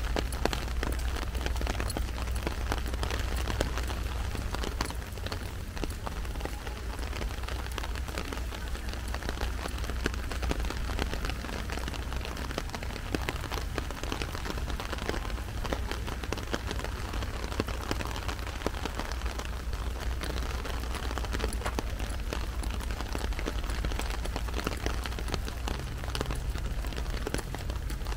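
Heavy rain falling on an umbrella: a dense, steady hiss of drops hitting it, with a steady low rumble underneath.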